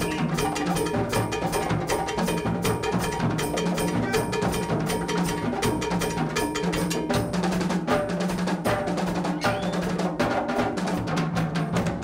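Percussion ensemble playing a fast, busy groove: hand-played congas and a drum kit, with low pitched notes held underneath.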